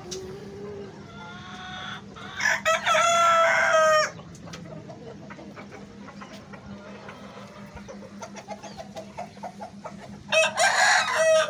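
Australorp rooster crowing twice, a long call about two seconds in and another near the end, with hens clucking softly in between.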